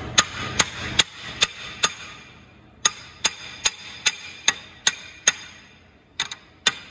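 Hammer blows on a long steel drift rod, driving the reverse sliding gear shaft back out of an Allis-Chalmers WD tractor's transmission case. The metal-on-metal strikes ring and come about two and a half a second: five, a short pause, seven more, then a few lighter quick taps near the end.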